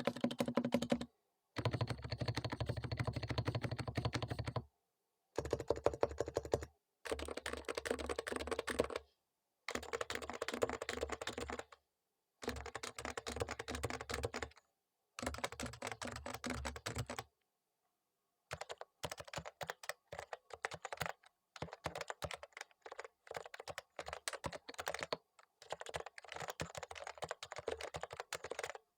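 Typing on a Topre Realforce R3 keyboard with its electrostatic capacitive keys, in bursts of rapid keystrokes of a few seconds each with short pauses between them. For roughly the first two thirds the keyboard sits on the bare desk and each stroke carries a low thump. After a brief pause it sits on a desk mat, and the keystrokes sound lighter with little low thump.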